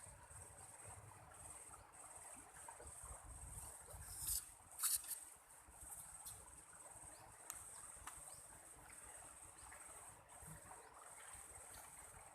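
Faint insect trilling steadily at a high pitch, with two brief sudden noises about four and five seconds in that are the loudest moments.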